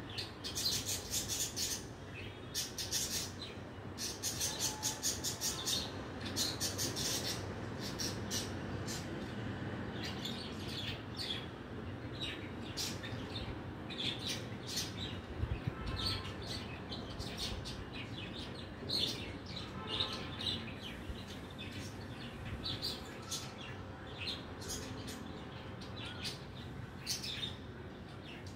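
Small birds chirping in quick, repeated twittering runs, loudest in the first few seconds and sparser later, over a steady low background hum.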